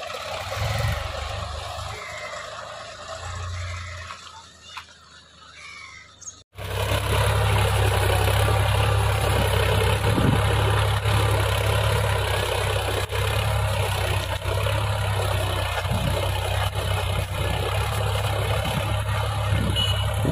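Solis 4515 4WD tractor engine running. It is faint at first as the tractor drives off along a dirt road, then after a sudden cut about six seconds in it is loud and steady, pulling a plough through the field.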